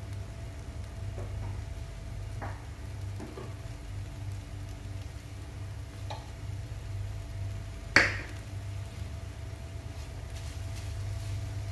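Steady low hum from the electric hob, with a few soft clicks and one sharp clack about eight seconds in. A silicone spatula then starts stirring onions, green chillies and curry leaves in a dry nonstick pan.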